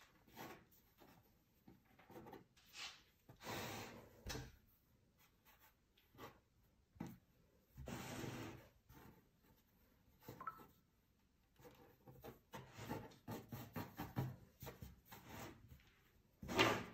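Faint, irregular rubbing and brushing as hands gather and lay long strands of fresh dough, just cut by a pasta machine, on a work surface. A louder swish comes near the end.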